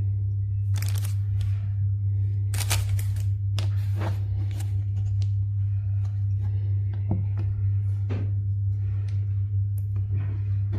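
Soft bread dough slime being squished and stretched by hand, giving irregular sticky crackles and little pops, over a steady low hum.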